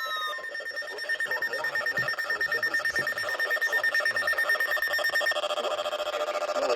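Weather radio alert alarms sounding for a winter storm warning: rapid pulsing electronic beeps at one high pitch. About five seconds in, a second alarm joins with lower pulsing tones in several pitches, and a steady tone cuts off just after the start.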